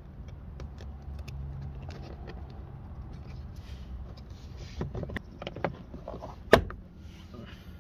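Small plastic clicks and handling noises as an LED door logo projector is plugged into the courtesy-light connector, then a few sharper clicks and one loud snap near the end as the clear plastic lamp housing is pressed home into the door panel's courtesy-light slot. A low steady rumble runs underneath.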